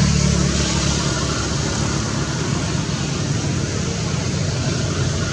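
Steady low rumble with an even hiss over it, level throughout.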